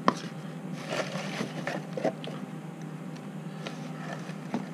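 Small cardboard boxes being handled: scattered taps, knocks and rustling as they are lifted from shredded-paper packing filler and turned over in the hands, the sharpest tap just at the start. A steady low hum runs underneath.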